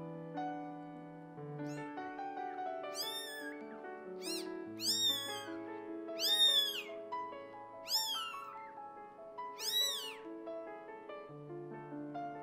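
Newborn kitten mewing: about six short, high-pitched cries, each rising and falling, starting about three seconds in, over soft piano music.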